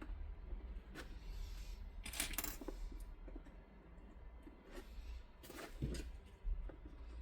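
Stiff laminated X-Pac fabric being handled and folded by hand, crinkling in several short, crisp bursts.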